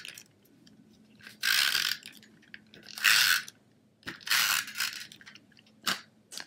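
Sheet of designer-series paper crinkling and rustling as hands handle it, in four short bursts of about half a second each, the last the shortest.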